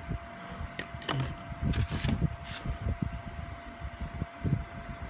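Small plastic model-kit parts being cut and handled: several sharp plastic clicks and snaps in the first half, over soft rustling of fingers on plastic.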